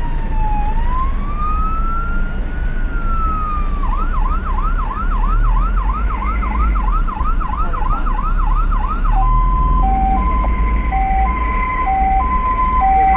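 Ambulance's electronic siren cycling through its modes: a slow falling and rising wail, then a rapid yelp for about five seconds, then a high-low two-tone from about nine seconds in. Under it runs the steady low drone of the moving vehicle.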